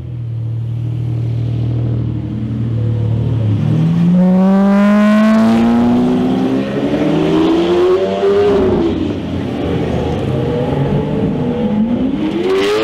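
Lamborghini Aventador's V12 engine accelerating hard: a low steady rumble, then revs climbing steadily for several seconds, falling back, and climbing again near the end.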